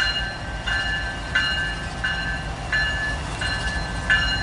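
Norfolk Southern intermodal train's diesel locomotives rumbling low as they roll onto a bridge, with a bell ringing steadily, about three strokes every two seconds.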